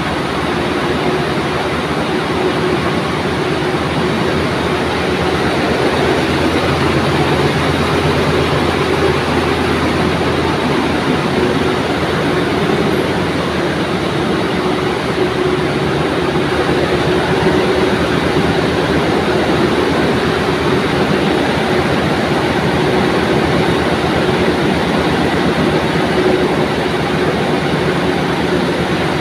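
A row of comber machines running in a textile mill: a loud, steady mechanical clatter with a constant hum, and a deeper drone that drops out about ten seconds in.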